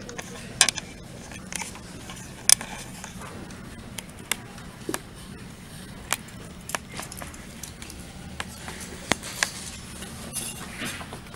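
Scattered light clicks and taps of pens, paper and small objects handled on a tabletop, a few sharper knocks among them, over a steady low room hum.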